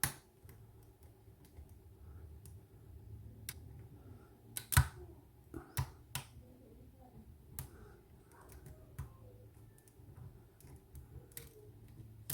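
A steel hook pick and tension wrench working the pins of a seven-pin Scandinavian Oval pin-tumbler lock: light scraping with scattered sharp metallic clicks, the loudest about five seconds in.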